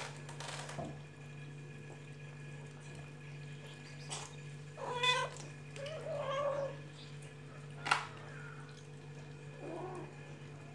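Cat meowing a few times: two short meows around the middle and a softer one near the end, with a couple of sharp clicks in between.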